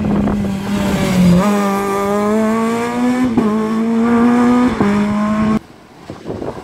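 Rally car engine pulling hard through the gears: its pitch climbs, drops back twice as it shifts up, and climbs again, then cuts off suddenly near the end.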